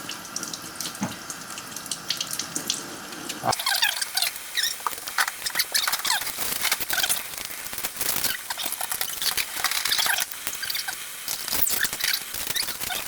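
Tap water running into a sink while small mackerel are cleaned, then the flow stops about three and a half seconds in. Many small wet clicks and squeaks of the slippery fish being handled follow.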